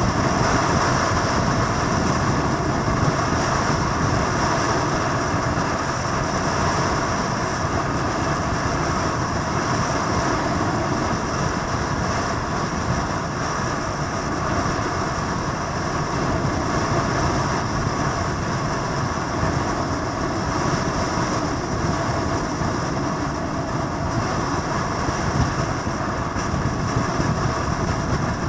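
Steady, unbroken motor-vehicle noise, with no clear start, stop or change in pitch.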